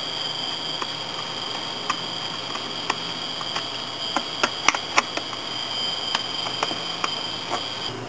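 Light metallic clicks of a screwdriver working the bolts of an air-cleaner base plate over a Weber 32/36 carburettor, irregular and about one a second, with a quick cluster in the middle. They come over a steady high whine that cuts off just before the end.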